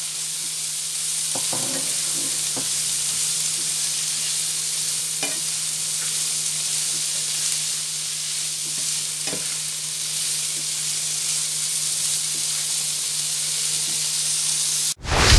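Diced lardons and sliced onions sizzling in butter in a frying pan with a steady hiss, stirred with a slotted spatula that clicks against the pan a few times. The sizzle cuts off abruptly just before the end.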